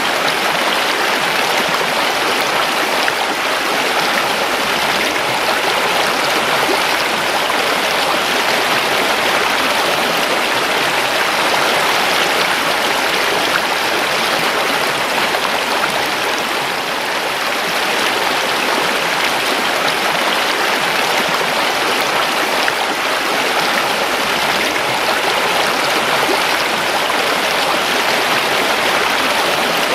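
A river flowing steadily: continuous rushing and babbling of water.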